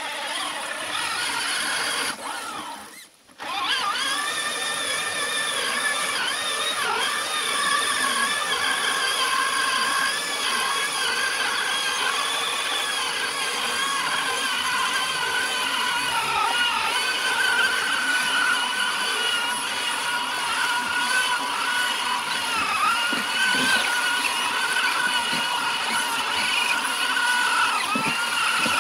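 High-pitched whine of RC crawler trucks' electric motors and gearboxes driving through deep mud and water. The pitch rises and falls as the throttle changes, and the sound briefly cuts out about three seconds in.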